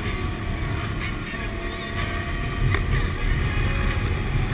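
ATV engine running steadily at cruising speed, heard on board, with a low wind rumble on the microphone.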